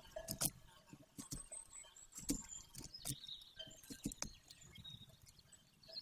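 Golden eaglet tearing and plucking at a fledgling bird held in its talons on a stick nest: irregular snaps, knocks and rustles of feathers and nest material, with the loudest snaps about half a second and a little over two seconds in.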